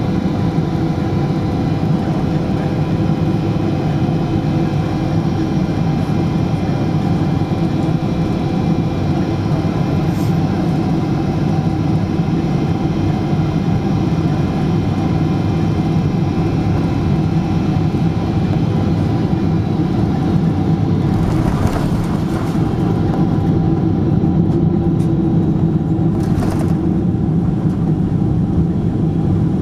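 Boeing 777-200ER engines and airflow heard from inside the cabin on final approach: a steady drone with thin whining tones. In the last third two brief knocks come as the landing gear meets the runway, and the aircraft then rolls out.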